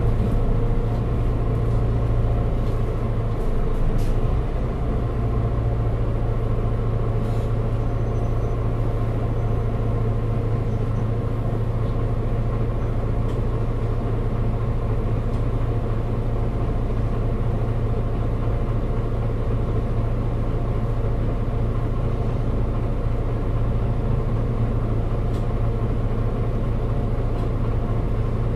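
Mercedes-Benz Citaro G Euro 6 articulated city bus engine running steadily: a constant low drone with no revving, dropping slightly in loudness about four seconds in.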